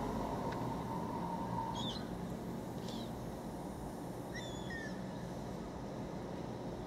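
Steady low rumble of a running automatic car wash, heard from inside a waiting car. A few short high chirps come in about two, three and four and a half seconds in.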